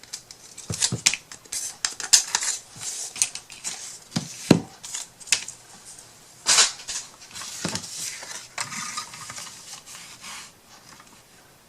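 Craft supplies handled on a work table: paper strips and tools picked up and set down, giving irregular clicks, knocks and papery rustles.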